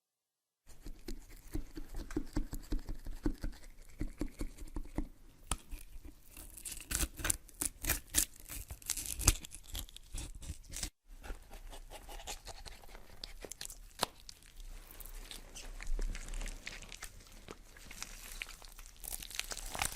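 Horror sound effects: irregular crackling, scratching and clicking in two stretches, broken by a brief silence about eleven seconds in.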